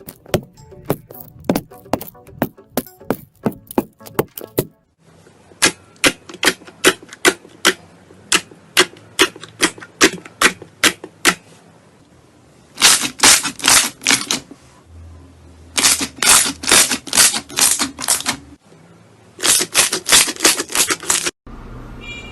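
Slime being pressed and poked with the fingers, giving sharp popping clicks a few times a second as air pockets burst. The clicks come in several runs that stop abruptly and start again.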